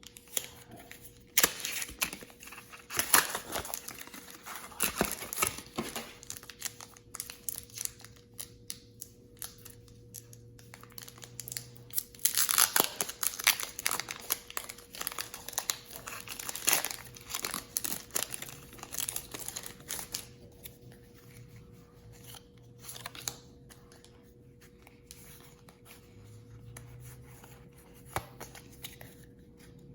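Foil Pokémon booster pack wrapper being torn open and crinkled, in two bursts of tearing and crinkling, then quieter rustling and clicking of cards being handled.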